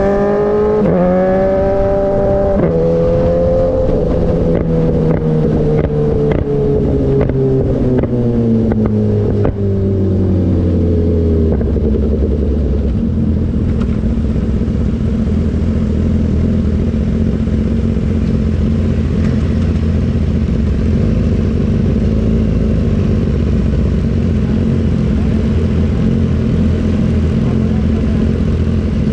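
BMW S1000RR four-cylinder engine through an Austin Racing GP1R full-Inconel exhaust, revs falling over about ten seconds with a couple of brief rises, and sharp pops and crackles from the exhaust as it comes off throttle. It then settles into a steady idle.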